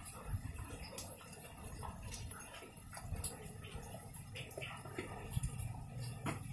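Rain falling on garden foliage: scattered, irregular taps of raindrops and drips striking leaves over a soft hiss.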